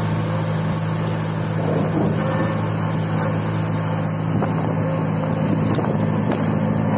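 Articulating boom lift's engine running steadily as the lift creeps across timber planks, a constant low hum with a few faint clicks over it.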